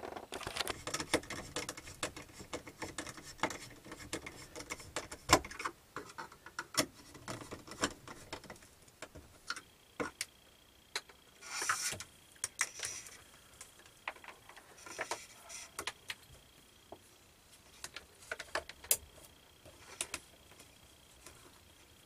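Irregular clicks, taps and short rustles of hands working with tools and wiring at a wall, with a few louder sharp clicks. A faint steady high whine comes in about halfway through.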